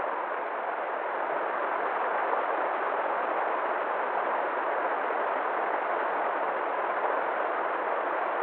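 River water flowing steadily, an even, unbroken rush of water.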